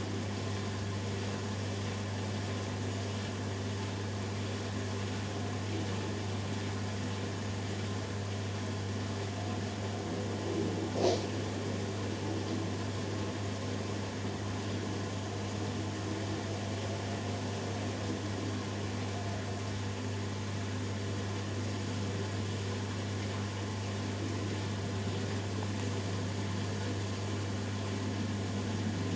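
Hoover Dynamic Next washing machine running early in its spin cycle, a steady low hum with mechanical noise. A single sharp click about eleven seconds in.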